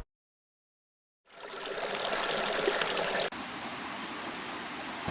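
About a second of silence, then a steady rushing hiss fades in, like running water or wind; a little past the middle it cuts to a quieter hiss.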